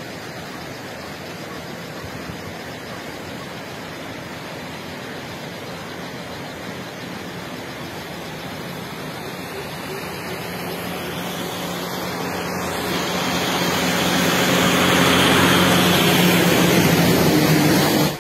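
Steady rushing noise over the flooded river, joined about halfway through by a low engine hum that grows much louder and then cuts off suddenly.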